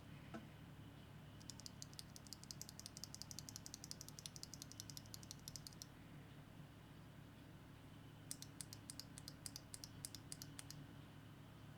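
Fast typing on a Neo60 Core mechanical keyboard fitted with Gateron Khonsu linear switches: faint, rapid key clicks in two runs, the first about four seconds long, then a pause, then a shorter run of about two and a half seconds.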